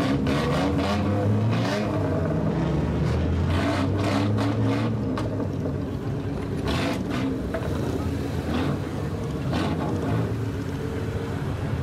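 Lowered kaido-racer sedan's engine revving repeatedly through a straight-piped exhaust, the pitch rising and falling with each blip of the throttle, with a number of short sharp cracks between revs.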